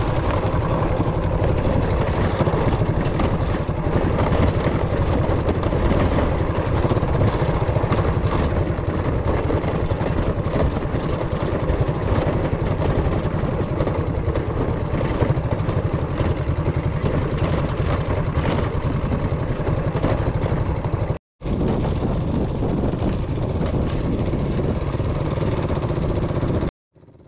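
An engine running steadily up close, with a fast, even pulse. The sound cuts out abruptly twice, briefly, about 21 seconds in and again near the end.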